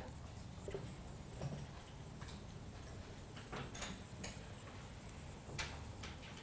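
Marker drawing on a whiteboard: faint scattered taps and short rubbing strokes over a low steady room hum.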